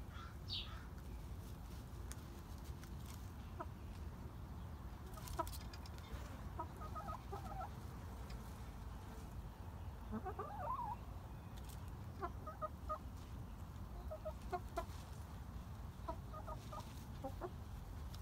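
Hens clucking softly: short low notes in small clusters, repeated again and again, over a steady low rumble.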